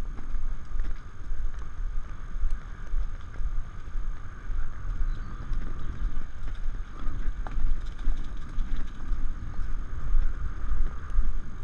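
Arabian stallion galloping on a leaf-littered dirt trail: a steady rhythm of hoofbeats about two a second, with wind rumbling on the microphone.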